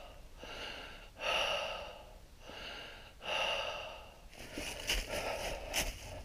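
A person breathing heavily close to the microphone, with a loud breath about every two seconds. Near the end come a few sharp clicks and crackles.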